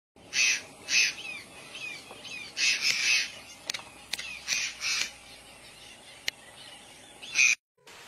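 Sun conures giving a series of loud, harsh screeches, with softer chirps between them and a few sharp clicks.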